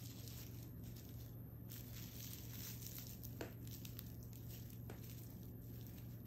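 Soft rustling of a plastic ribbon and gloved hands handling a bundle of stems while it is tied up to hang, with two small clicks, over a steady low hum.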